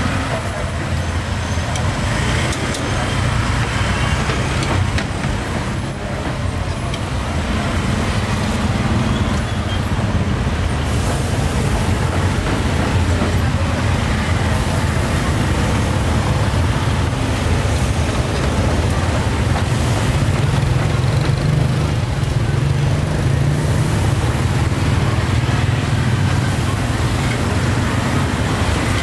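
Steady street traffic: motorbikes and cars passing, with a constant low engine hum.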